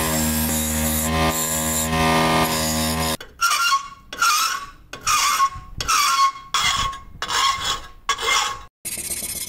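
Motor-driven wire wheel running steadily, brushing rust off a rusty steel car jack part. A little after three seconds it gives way to a hand file rasping across the steel part clamped in a vise: about seven strokes, one every 0.7 s or so.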